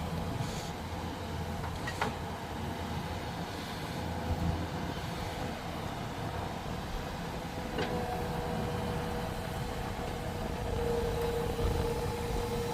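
Heavy diesel machinery running steadily with a low rumble and a steady whine. The whine grows louder near the end, and a couple of sharp clicks come through.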